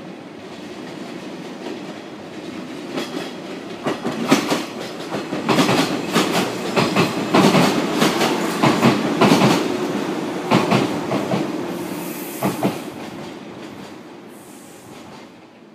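413 series electric multiple unit train running past, its wheels clicking over the rail joints in quick pairs. The rumble builds to its loudest about halfway through and fades away near the end.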